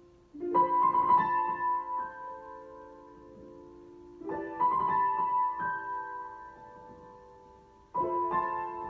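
Piano improvisation: three slow, spread chords about four seconds apart, each struck and left to ring and fade.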